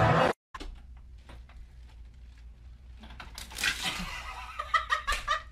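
Mostly quiet room with a few small knocks and rustles; near the end, a person laughs in a few quick pulses.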